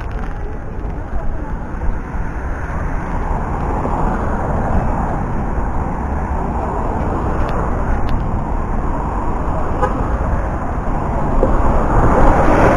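Steady traffic noise of cars passing on a busy city avenue, growing louder near the end.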